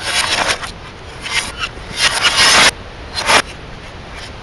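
Broken plastic casing and glass debris of a smashed CRT television scraping and rattling as pieces are moved, in several bursts that swell and then cut off suddenly, as the sound does when played in reverse.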